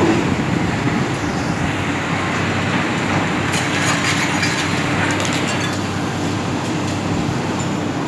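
Tracked hydraulic excavators running steadily with a diesel drone, with a stretch of scraping and clinking of broken concrete rubble about halfway through.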